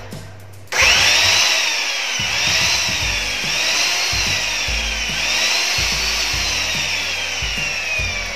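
INGCO cut-off saw's brushed electric motor, fitted with a new armature, switched on about a second in. Its whine climbs in pitch, then sags and climbs again about four times as the trigger is pulsed, and finally winds down with a slowly falling pitch as the blade coasts.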